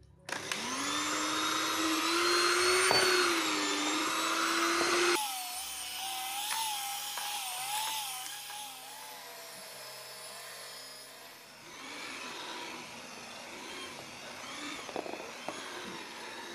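Electric hand mixer with dough hooks kneading stiff bread dough to a smooth, elastic stage: a motor whine that spins up at the start, then wavers in pitch. About five seconds in it jumps abruptly to a higher whine, and it gets quieter later on.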